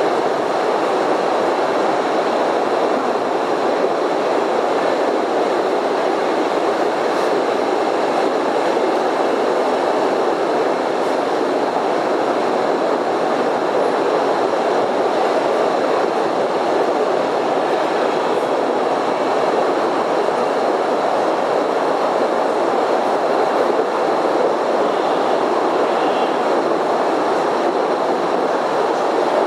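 Postojna Cave tourist train running steadily along its track: a continuous, even noise of wheels and carriages that holds the same level throughout.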